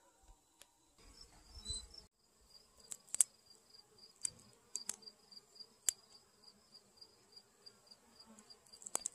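Faint buzzing of honeybees flying around a shed door. From about two seconds in, a steady high-pitched pulsing chirp runs through it, with several sharp clicks.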